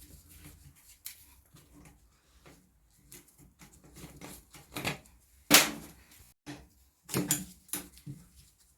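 A series of irregular clicks and knocks from hand-tool work on the dismantled car. The loudest, sharpest knock comes about halfway through, with a quick run of knocks a little later.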